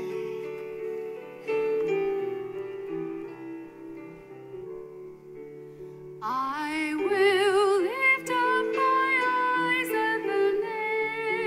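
Keyboard accompaniment playing a hymn's introduction in held chords; about six seconds in, a solo singer with vibrato begins the hymn over it.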